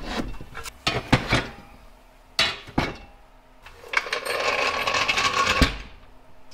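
Steel jack stands knocking and clanking as they are hung on steel wall-mounted holders, several sharp knocks in the first three seconds. About four seconds in, a steel floor jack rolls across a concrete floor with a steady rattle for about a second and a half, ending with a knock.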